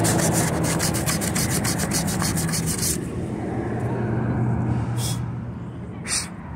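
Rapid, rhythmic rasping, about ten strokes a second, over a steady low hum. The rasping stops about three seconds in, and two short, sharp sounds follow near the end.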